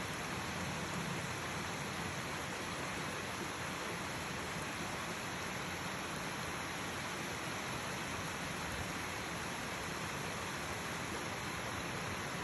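Mountain stream rushing and splashing, swollen after hard rain: a steady, even rushing noise.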